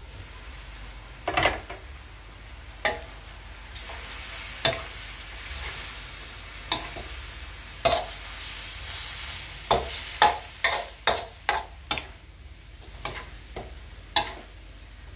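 Metal spatula scraping and knocking against a metal wok as chicken and pickled bamboo shoots are stir-fried, over a steady sizzle. The strokes come a few seconds apart at first, then quicken to about two a second for the last few seconds.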